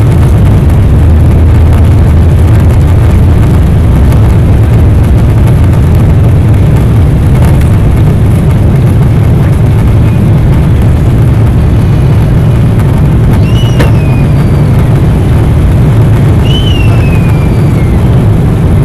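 Boeing 777-300 twin jet engines at takeoff power, heard from inside the cabin: a loud, steady roar with a deep rumble through the takeoff roll, lift-off and early climb. Two brief high squeaks, each falling in pitch, sound in the second half.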